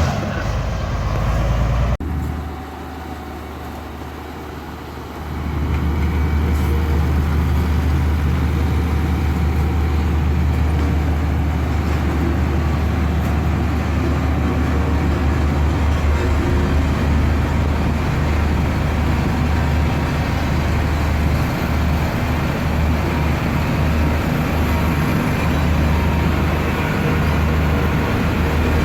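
Heavy road-construction machine's engine running steadily with a deep low hum. It cuts abruptly about two seconds in, runs quieter for a few seconds, and comes back up to full level about five seconds in.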